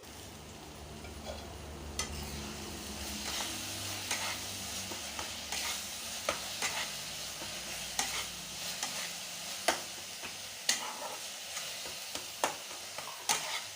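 Onion-tomato masala sizzling in a kadhai while it is stirred, the spatula knocking and scraping against the pan every second or two.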